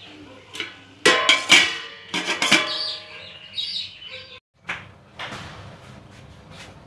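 A metal spoon clanking and scraping against a stainless steel kadai while chopped spinach is stirred. A quick run of ringing metallic clanks comes about a second in, then it goes quieter.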